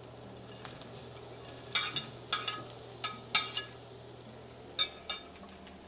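Fried potato cubes being slid off a ceramic plate into a skillet of frying chorizo. A spatula and the plate clink and scrape against the pan about seven times in short clusters, with a faint steady sizzle underneath.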